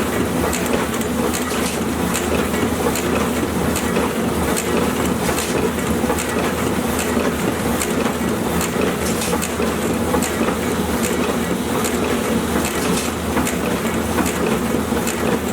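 Sticker (label) printing press running steadily, its ink rollers turning, with a continuous mechanical hum and a regular high clicking a few times a second.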